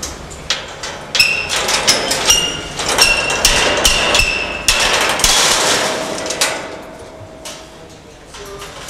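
Steel-framed wire-mesh gate being pulled shut, with a rapid run of metal clanks and rattles and a ringing metallic note. It dies down over the last couple of seconds.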